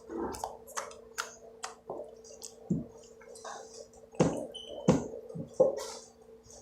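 Slime being squeezed and worked by hand: a run of wet squelches with sharp clicks and pops, the loudest three coming about a second apart near the end.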